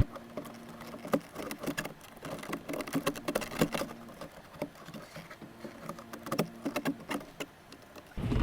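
Scattered light clicks, taps and scuffs of a plastic center console insert being worked down into a car's floor console opening and pushed against the surrounding trim, over a faint steady hum.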